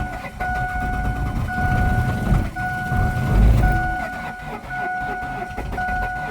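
2001 Ford Focus cranking without catching, its low starter-and-engine churn rising and falling, while a car warning chime sounds a steady tone that breaks and restarts about once a second. The car has stalled and won't start; the owner suspects the fuel pump or the timing belt.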